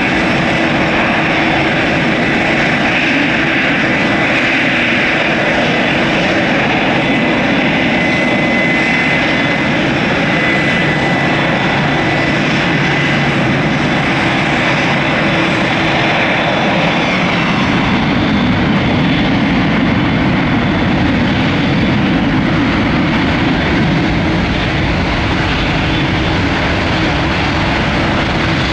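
Jet airliners taxiing on idle thrust: a steady turbofan whine with a thin high tone over a continuous rumble. The deeper rumble comes up a little past halfway as a larger jet draws closer.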